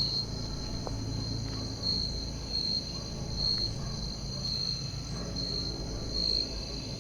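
A night insect trills at one high pitch, in pulses about once a second, over a low steady rumble.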